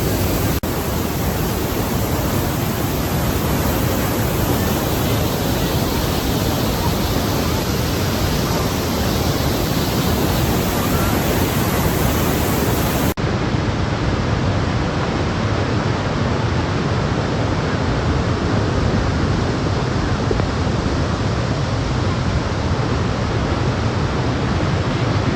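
Loud, steady roar of Niagara's Bridal Veil Falls pounding down at close range, an unbroken wash of water noise with two brief breaks, about half a second in and about halfway.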